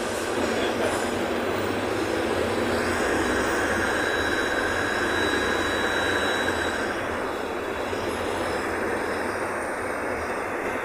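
Inside a city bus on the move: steady engine and road noise, with a faint high whine in the middle that fades out about seven seconds in.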